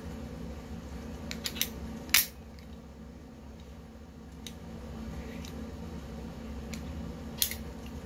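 Metal clicks of an aircraft lap seatbelt being worked by hand: the tongue snaps into the buckle with a sharp click about two seconds in, after a few lighter clicks of the fittings. Near the end another sharp click as the buckle's metal flap is lifted to release the tongue.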